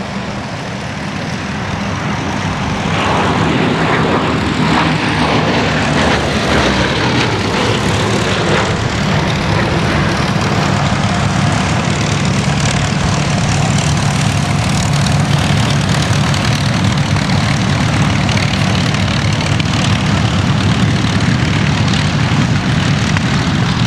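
Bristol Blenheim Mk I's two Bristol Mercury radial piston engines droning in a low flypast. The drone grows louder over the first few seconds, drops in pitch as the aircraft passes, then holds steady.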